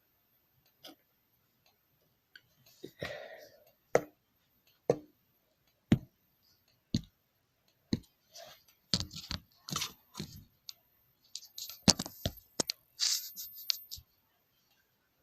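Fire alarm strobes clicking as they flash, one sharp click about every second, with bursts of rustling in between.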